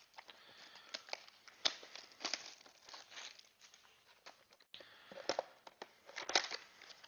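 Plastic wrapping being torn and crinkled off a trading card box, with the cardboard box rustling as it is handled and its flap opened. Soft scratchy crackles, with a few sharper ones about five and six seconds in.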